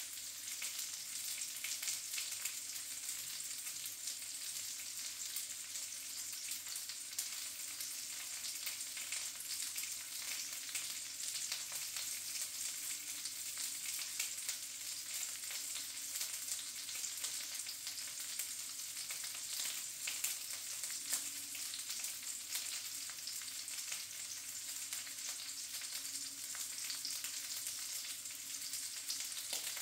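Sausages frying in a pan on a gas stove: a steady sizzle full of small, constant crackles and spits. A faint low hum runs beneath it.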